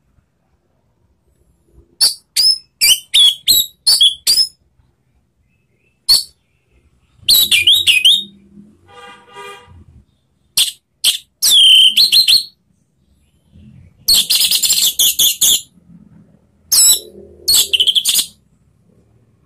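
Orange-headed thrush (anis merah) singing loudly in bursts of high, rapid whistled phrases, about six of them, with short pauses between.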